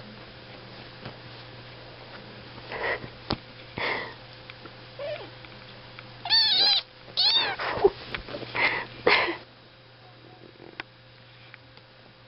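Kittens mewing while they play-fight: a few short calls around three and four seconds in, then a run of loud, high-pitched mews that rise and fall in pitch, from about six to nine seconds in.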